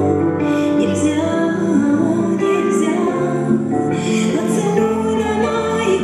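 A slow, tender song with a female singing voice, played over a hall's loudspeakers as the backing track for a dance.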